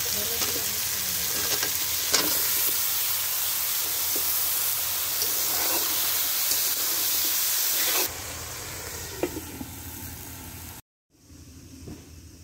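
Vegetables sizzling in hot oil and spice paste in a large metal wok, with a metal spatula scraping and knocking against the pan now and then as they are stirred. The sizzling drops off suddenly about eight seconds in, leaving quieter background.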